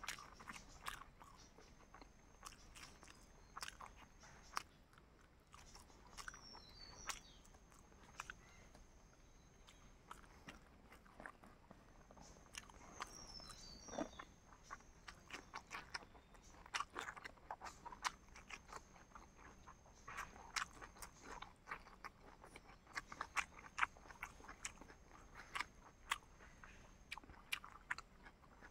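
Close-miked eating: irregular wet clicks of biting and chewing, denser in the second half. A thin high steady tone comes and goes in the background.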